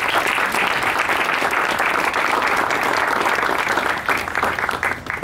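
Audience applauding: many hands clapping in a dense, even patter that thins to scattered single claps near the end.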